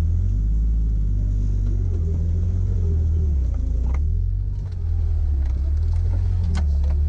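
Off-road 4x4's engine running low and steady as it crawls over rocks on a trail, heard from inside the cab, with its pitch shifting a little. A single sharp knock near the end.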